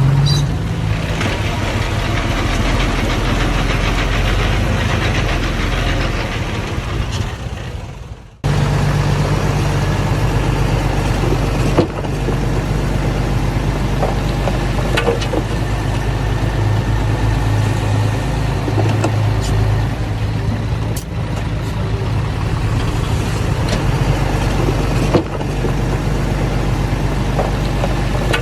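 Diesel engine of earth-moving machinery running steadily, with a few faint clanks. About eight seconds in the sound dies away and then cuts straight back in at full level.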